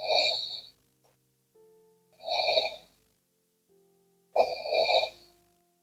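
A person snoring in sleep: three loud snores at a steady breathing rhythm, about two seconds apart, over soft background music.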